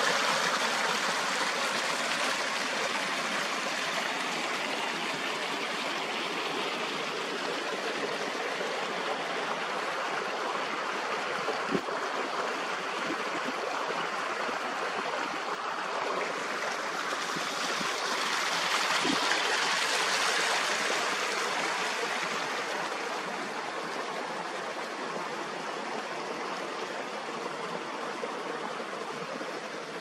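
Fast spring meltwater forest stream rushing, a steady wash of water noise that swells about two-thirds of the way through and grows fainter near the end.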